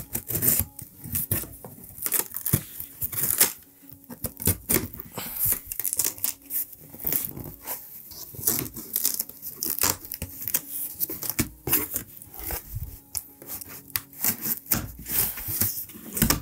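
Packing tape on a cardboard shipping box being slit with a blade and pulled away in irregular ripping bursts, with cardboard flaps scraping and rustling in between.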